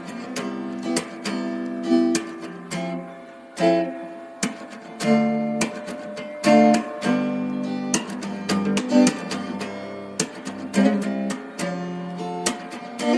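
Acoustic guitar music: plucked notes and strummed chords ringing out, with sharp attacks every half second or so.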